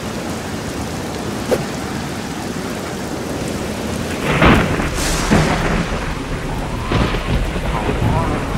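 Steady rain with thunder rumbling several times from about four seconds in.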